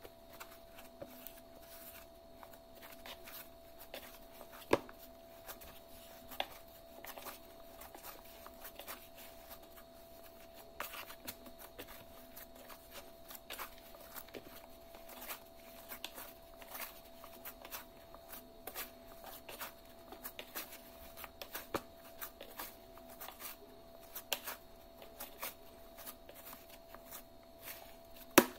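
Hands kneading soft roti dough in a metal mixing bowl: irregular soft pressing and rustling, with occasional sharper knocks against the bowl, the loudest about five seconds in and near the end. A faint steady hum sits underneath.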